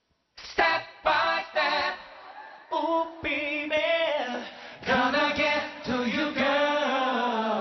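Male vocal group singing a cappella in close harmony into microphones: three short sung notes, then longer held chords with vibrato from about three seconds in.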